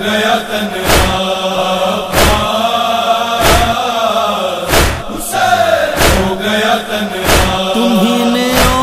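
Male voices chanting a Muharram noha in long, drawn-out tones, over a regular sharp beat of chest-beating (matam) about once every 1.3 seconds.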